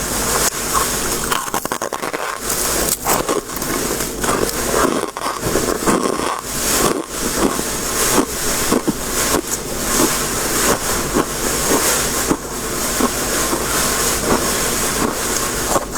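Crisp freezer frost being scraped and crunched: many small, sharp crunches packed closely together.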